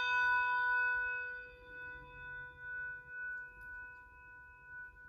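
Electronic practice handbell sounding a sampled bronze handbell note, struck just before and ringing on. The higher overtones die away within about two seconds, while the lower tones keep ringing with a slow wavering swell.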